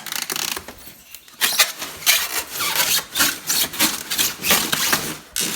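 Cardboard and packing material scraping and rubbing in repeated rough strokes as the heavy tile saw is worked out of its box, after a short pause about a second in.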